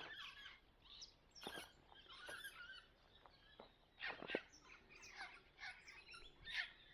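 Faint bird chirps and calls, short and scattered, with a louder call about four seconds in.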